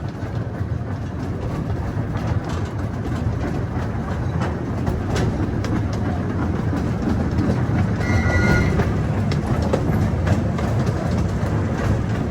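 Zoo train running along its track, heard from on board: a steady low rumble with scattered rail clicks, and a brief high squeal about eight seconds in.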